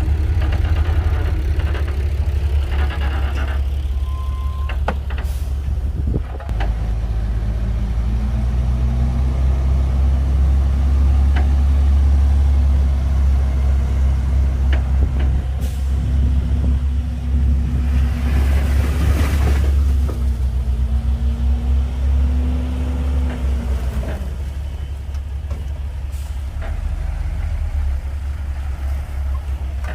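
Komatsu D58P bulldozer's diesel engine working under load with a deep throb, its note rising about eight seconds in and dropping back near the end. A few sharp clanks and a short hissing burst about two-thirds of the way through.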